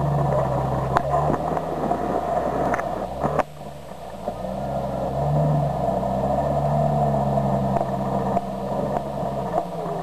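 Lifted Jeep's engine working at low speed as it crawls over boulders, easing off about three and a half seconds in and then picking back up with a couple of short rises. A few sharp knocks sound in the first few seconds.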